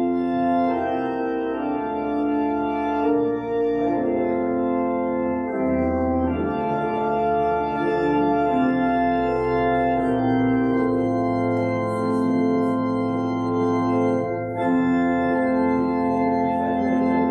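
Pipe organ playing slow, sustained chords that change every second or two over held low bass notes.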